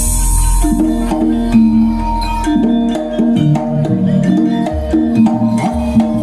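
Live Javanese jaranan ensemble music: drums and tuned percussion struck in a steady rhythm under held melodic notes that change pitch in steps.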